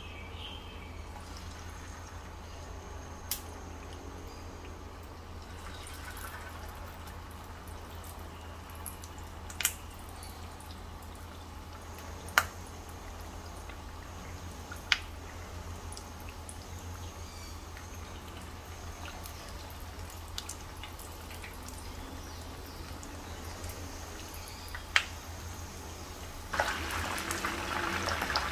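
Coated chicken pieces deep-frying in hot oil: quiet bubbling over a steady low hum, with a few sharp pops. About two seconds before the end, a loud steady sizzle from a pan full of frying chicken comes in.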